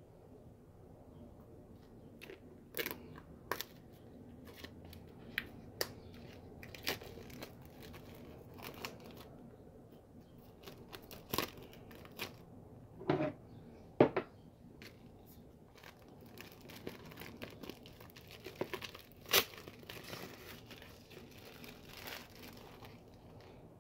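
Product packaging being handled and opened: scattered tearing and crinkling with sharp clicks and taps, loudest a little past halfway through.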